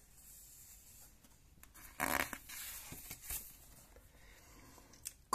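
A page of a picture book being turned: a short papery swish about two seconds in, then a lighter rustle a second later, over quiet room tone.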